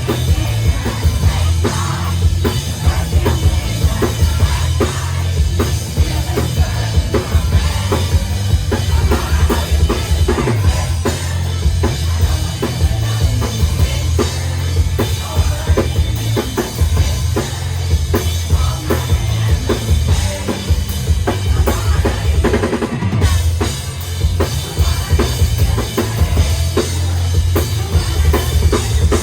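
Live rock band playing loudly, with a drum kit keeping a steady beat of kick and snare over heavy bass.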